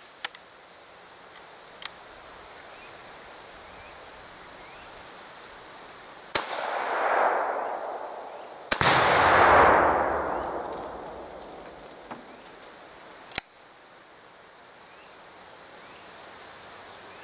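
Two shots from a 5.45×39 AK-74 rifle about two and a half seconds apart, each followed by a long rolling echo. The second sets off a pound of Tannerite packed in a watermelon: a louder, deeper blast that rolls away over about three seconds. A few light clicks come before the shots and one sharp click a few seconds after.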